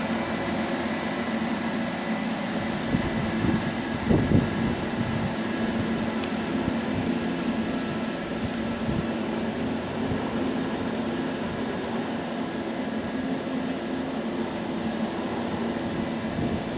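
Chairlift running: a steady mechanical hum with several held tones and a faint high whine from the station machinery and the cable running over the roller sheaves, with a few knocks as chairs pass through, the loudest about four seconds in.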